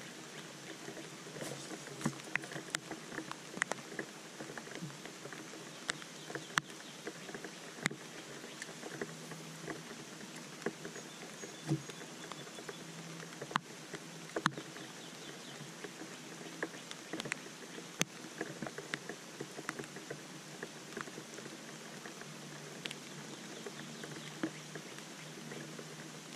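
Rain falling on a bass boat and rain gear: a steady hiss with many scattered, sharp drop ticks.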